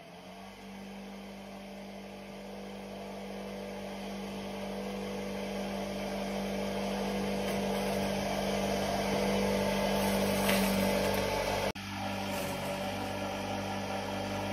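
A multipurpose crusher's motor running with a steady hum, growing louder over the first ten seconds. It cuts out abruptly about twelve seconds in, then runs on.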